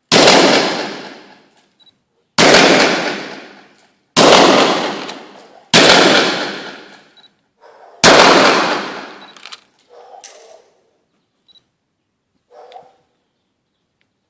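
Revolver fired five times at irregular spacing, about two seconds apart, each report loud and sharp with a long echoing tail, as gunfire noise for desensitizing a horse.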